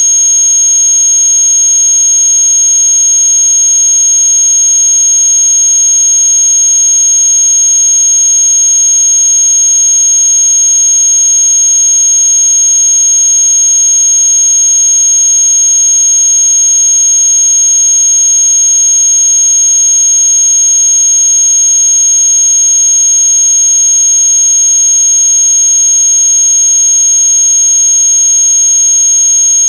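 Loud, unchanging electronic tone: a piercing high whistle over a fainter buzzing hum, with no break or change. It is a synthetic noise played to annoy noisy neighbours.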